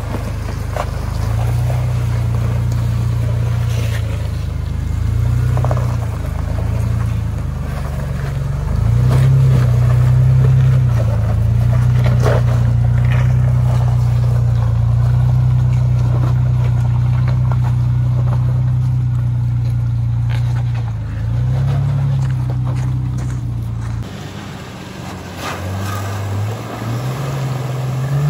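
Lifted Chevy Blazer's engine crawling over rocks, its revs rising and falling at low speed, with occasional knocks of tires and underbody on stone. Near the end the sound cuts to a quieter engine.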